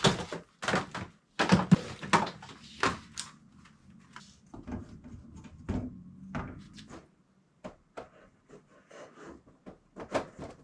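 Boxed Funko Pop figures being handled and set onto store shelves: irregular knocks and scrapes of cardboard boxes. The knocks come thick and fast for the first few seconds, then softer and further apart.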